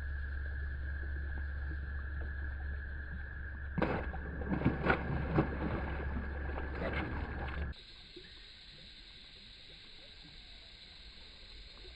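A bass striking a Stanley Ribbit topwater frog: a burst of loud splashing about four seconds in that goes on for a few seconds, over a steady hum. The hum cuts off suddenly near eight seconds, leaving a quieter background.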